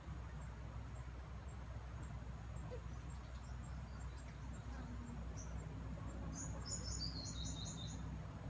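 Faint insect ticking over a steady low rumble. About six seconds in, a bird gives a quick run of high chirps that step down in pitch.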